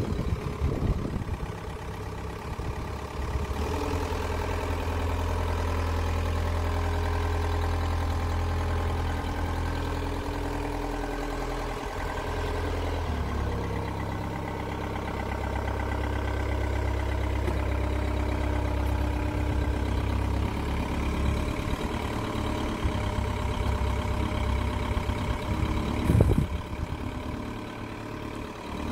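Linde H25 forklift's engine running steadily as the truck is driven, its note shifting a few seconds in and again about halfway through. Near the end there is one short, loud clunk.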